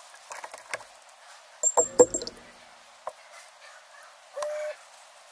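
Screwdriver and small metal parts knocking and clinking against a glass jar and the bench. A few light clicks come first, then a loud ringing clink about two seconds in, and a brief squeak of the tool against the glass near the end.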